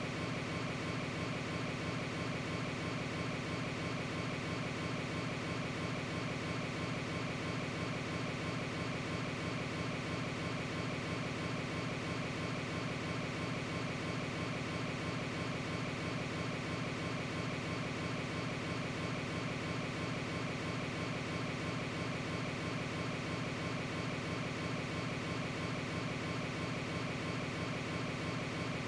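A steady mechanical drone that does not change or pause.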